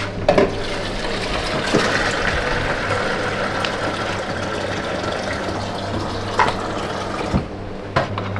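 Water running steadily from a tap into a cup for several seconds, starting just after the beginning and stopping about seven seconds in, with a few small knocks.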